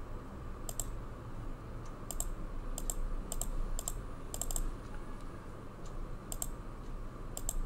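Computer mouse clicking as text is selected and editor toolbar buttons are pressed: an irregular series of short, sharp clicks, many in quick pairs, over a faint steady hum.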